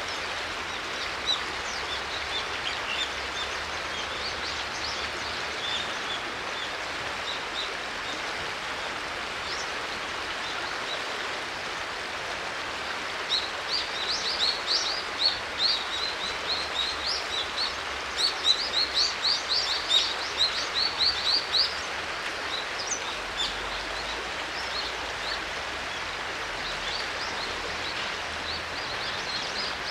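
Shallow river running over stones, a steady rushing, with small birds chirping high over it; the chirps come thick and fast for several seconds in the middle.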